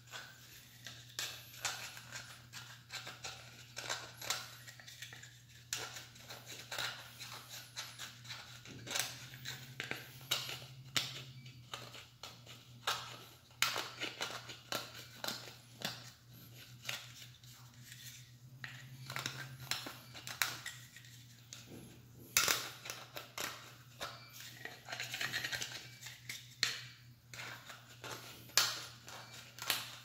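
Knife blade scraping paint off the plastic housing of a System Sensor smoke detector, in many short, irregular strokes.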